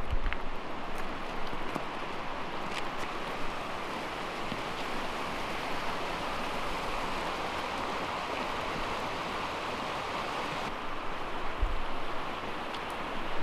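Fast river current rushing steadily over rocks below a bridge: a continuous, even wash of water noise. A couple of low bumps near the end.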